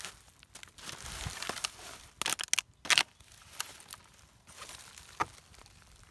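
Dry leaves, twigs and plastic litter rustling and crackling under shoes and hands, with a cluster of sharp crinkles and snaps about two to three seconds in.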